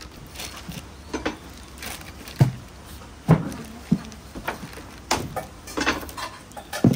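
A series of irregular knocks and thumps, about a dozen over several seconds, the loudest about two and a half and three and a half seconds in.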